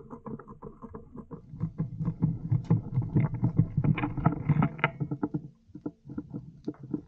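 Close handling noise from an airsoft rifle and the player's gear: irregular rustling, scraping and light knocks right at the gun-mounted camera, easing off about five and a half seconds in.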